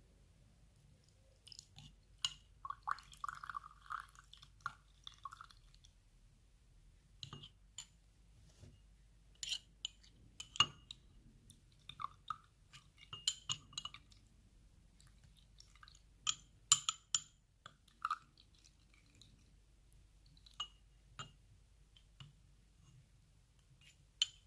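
Scattered clinks and taps of kitchen utensils against a dish, with a short stretch of scraping a few seconds in, as grated red onion is strained to draw off its juice.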